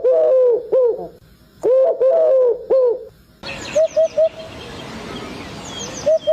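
A bird calling: short arched hooting notes in quick groups of two to four. About halfway through, the sound changes abruptly to a steady hiss, with quick runs of three short higher notes twice.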